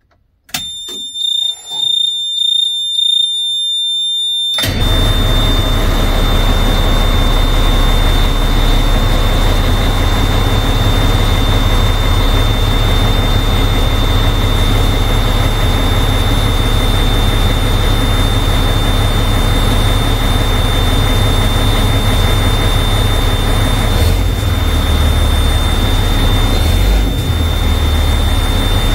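Oshkosh MK23 7-ton truck's dash warning beeper sounds a loud, steady high-pitched tone. About four and a half seconds in, the Cat C12 diesel starts and settles into a steady run, with the beeper still sounding faintly under it. The engine is being run right after an oil change to check the oil level.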